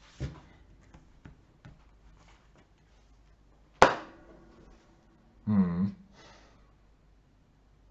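Light clicks and taps of cards and game pieces handled on a tabletop, with one sharp knock and a short ring about four seconds in. A brief hummed vocal sound and an outward breath follow near the end.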